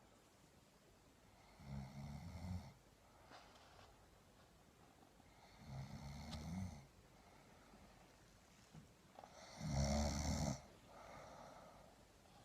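Snoring: three long snores about four seconds apart, each lasting about a second, the third the loudest.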